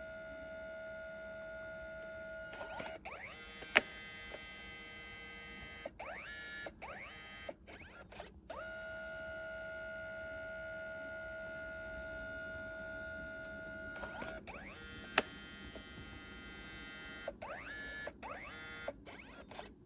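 Kodak Mini Shot 2 Era's 4Pass dye-sublimation printer mid-print: a steady motor whine as the paper feeds, broken twice by a sharp click and several rising whines with short stops as the mechanism shifts between colour passes.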